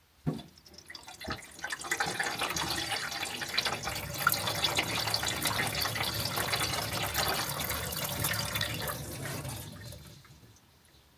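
Water running and splashing, as in a water test for a leak around a Hiace van's high-mount stop lamp. It builds up over the first couple of seconds and stops about ten seconds in.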